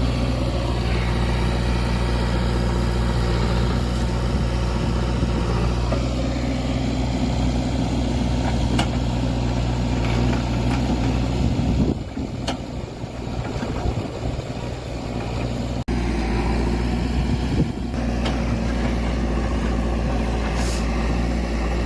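Diesel engine of a JCB 3DX backhoe loader running steadily. It drops quieter for a few seconds about halfway through, then comes back up after an abrupt break.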